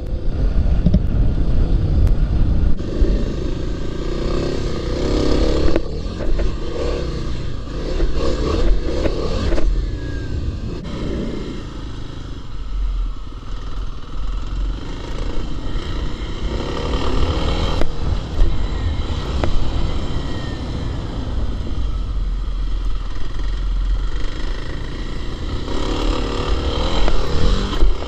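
2021 Kawasaki KLX300's single-cylinder four-stroke engine being ridden on dirt, its note rising and falling with the throttle, over a steady low rumble.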